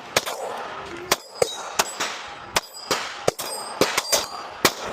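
A string of about ten 9mm pistol shots at an irregular pace, some followed by the clang and ring of steel targets being hit.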